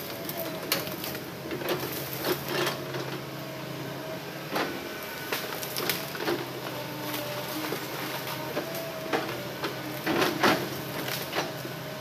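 Hitachi hydraulic excavator's diesel engine running steadily under load, with irregular knocks and cracks as its bucket drags and shifts a felled log through brush; the loudest knocks come about ten seconds in.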